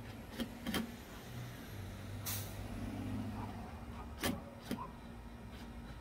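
A few sharp clicks and knocks from a plastic solar flood light and its wall bracket as the light is fitted onto the mount, the loudest about four seconds in. A low rumble and a short hiss come in between the clicks, about two seconds in.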